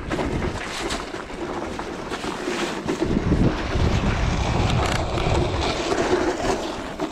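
Wind buffeting the microphone on open ice, a low rumbling noise that rises and falls.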